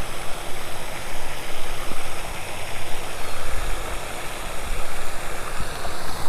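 Wind buffeting the microphone: a steady rushing noise with an uneven low rumble that swells and eases.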